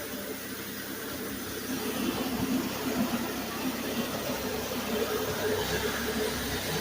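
Machinery running steadily, a little louder from about two seconds in.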